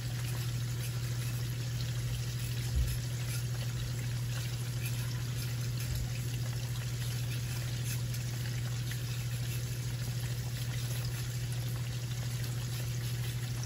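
A steady low hum, with a couple of soft knocks about three and six seconds in as a knife slices a green bell pepper on a cutting board.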